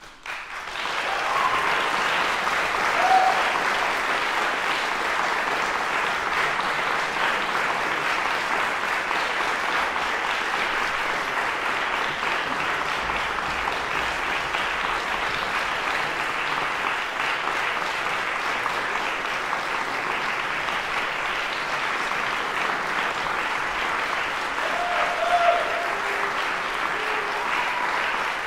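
Audience applauding: clapping that swells within the first second and then holds steady.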